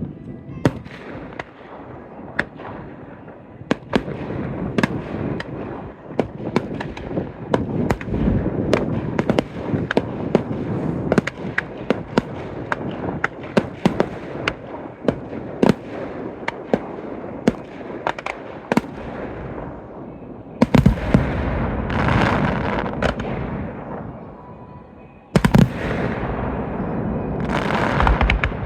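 Fireworks display: a rapid string of sharp bangs and crackles throughout. Two much louder salvos start suddenly about 21 and 25 seconds in, each a dense rumble of bursts.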